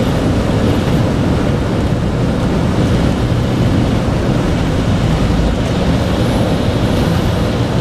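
Steady rush of air over a Schweizer two-seat glider's canopy and airframe, heard from inside the cockpit as a loud, even, low rumble with no engine note.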